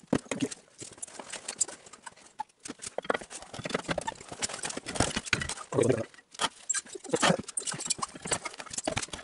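Irregular metal clicks and knocks as the flywheel of a small single-cylinder engine is handled and fitted back onto the crankshaft.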